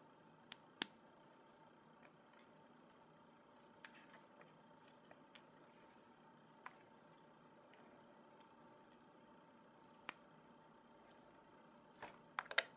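Sparse small clicks and taps from handling LEGO minifigure pieces and their packaging, with a quick cluster of clicks near the end, over a faint steady hum.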